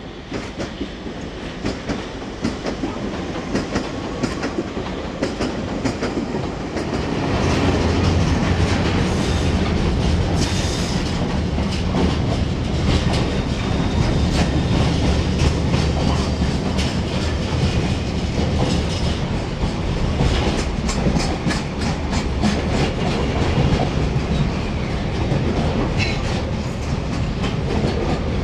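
Locomotive-hauled container freight train passing close by, its wagons' wheels rumbling and clicking rapidly over rail joints. It grows louder about seven seconds in as the train comes alongside.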